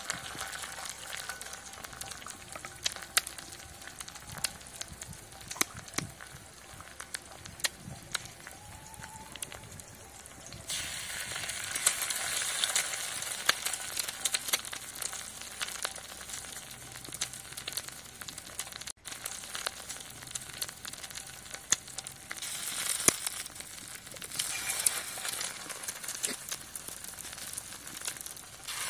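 Eggs sizzling in hot oil on a large flat griddle, with sharp pops all through. The sizzle gets louder about ten seconds in and again a little past twenty seconds.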